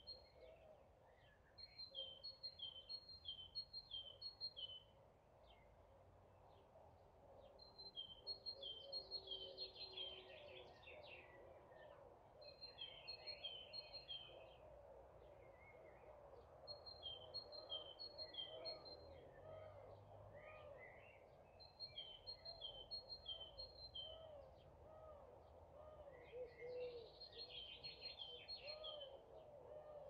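Faint countryside birdsong. One bird repeats a quick high two-note phrase in short runs every few seconds, and busier song from other birds comes in about ten seconds in and again near the end, over a continuous murmur of short low calls.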